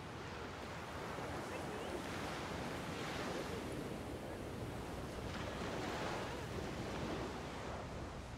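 Small waves from San Francisco Bay washing onto the shore, in two swells about two and six seconds in.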